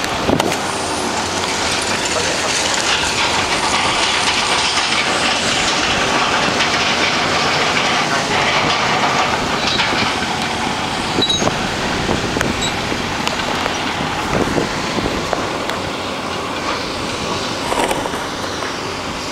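Moving vehicle heard from inside its cab: steady engine and road noise with scattered rattles and knocks, easing slightly near the end.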